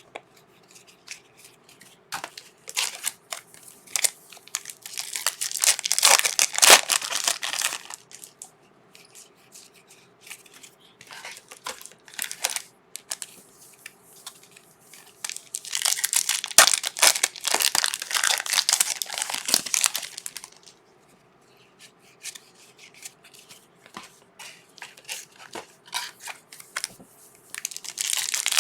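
Trading card pack wrappers being torn open and crinkled by hand, in several spells of tearing and crackling with short quiet gaps between.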